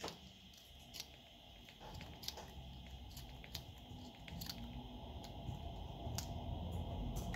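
Scattered small clicks and crinkles, about one a second, as fingers work at the opened plastic housing of a handheld GPS. Under them a low rumble grows steadily louder.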